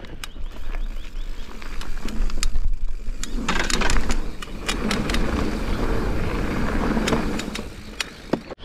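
A mountain bike being ridden: wind rumbling on the microphone and tyre noise, with sharp clicks and rattles from the bike, loudest about two to four seconds in.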